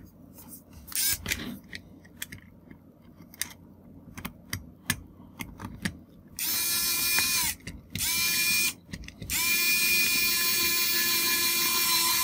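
Pen-style precision electric screwdriver driving small screws into standoffs. Its motor whines steadily in three runs: one of about a second, a shorter one, then a longer one of about three seconds near the end, with light clicks from handling the small parts before it. The screw is spinning rather than tightening, turning about 15 times for every thread it goes in.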